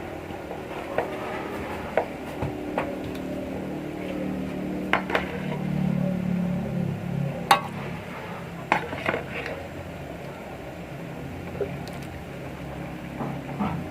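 Kitchen utensils clinking against pots and dishes: a dozen or so scattered sharp clinks over a low background hum that swells a few seconds in.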